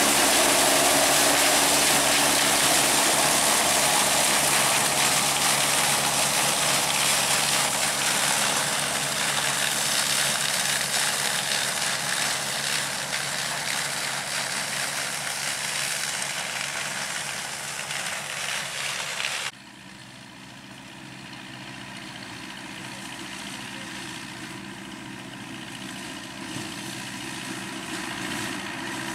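Vintage tractor engine running among loud rushing noise that slowly fades, then drops suddenly about two-thirds of the way through to a quieter engine that gradually grows louder.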